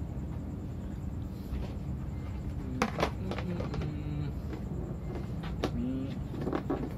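Plastic lid being fitted and pressed onto a plastic food container: a sharp click about three seconds in and another between five and six seconds in, over a steady low hum.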